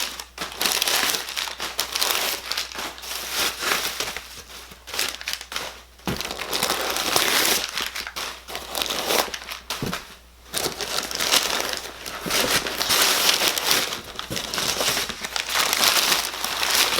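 Packing paper being crumpled and pulled out of a cardboard box, in irregular stretches of crinkling with brief lulls.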